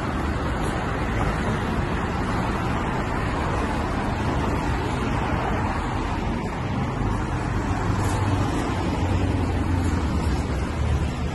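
Road traffic on a multi-lane city street: cars and a delivery truck driving past, a steady rush of tyres and engines. A low rumble swells in the last few seconds.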